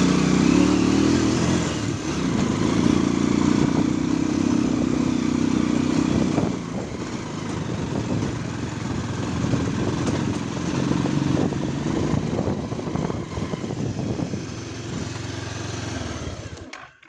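Motorcycle engine running while the bike rides over a rough dirt track, with knocks and rattles from the bumps. The engine is louder for the first six seconds or so, then eases off, and the sound cuts off suddenly near the end.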